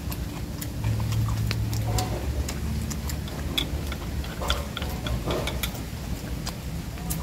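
Eating at a table of small porcelain bowls: irregular sharp clicks and ticks of chopsticks against the bowls, mixed with chewing of crispy fried snakeskin gourami.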